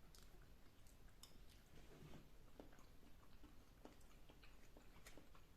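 Faint chewing of avocado: soft, wet mouth sounds with scattered small clicks.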